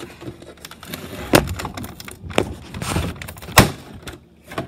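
Toy blaster packaging being pried and wrestled open by hand: irregular rustling and crackling with several sharp knocks, the loudest about three and a half seconds in.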